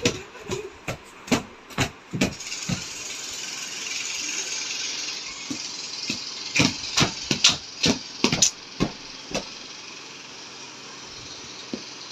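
A small wet dog scrambling and rubbing itself on a bedspread while a child plays with it. A run of sharp slaps and thumps on the bed, then a steady rustling hiss for a few seconds, then another run of slaps and thumps, fading to a faint hiss near the end.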